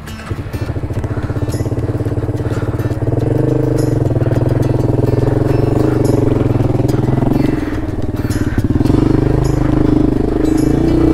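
Suzuki VanVan 200's single-cylinder four-stroke engine running under load as the bike climbs a rocky hill, its note rising about three seconds in and dipping briefly twice around eight seconds as the throttle eases.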